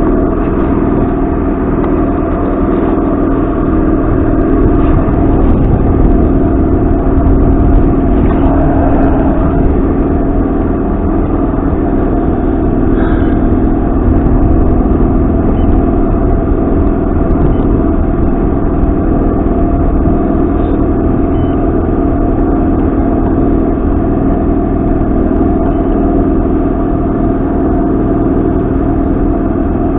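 Boat outboard motor running steadily under way, a constant engine drone that holds one pitch without revving up or down.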